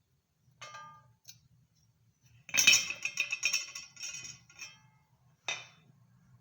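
Metal pieces clinking and clattering against each other: a single ringing clink, then a two-second run of jangling metal hits, then another clink near the end.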